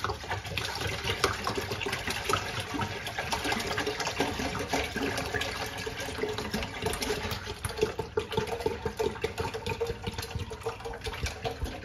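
Soy milk pouring from a plastic gallon jug into a large stainless steel stockpot, a steady splashing, gurgling stream with many small irregular glugs.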